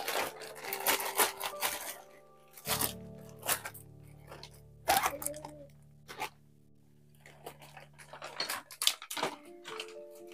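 Clear plastic bags and toy packaging crinkling and rustling in sharp bursts as toys are handled, over quieter background music with held notes.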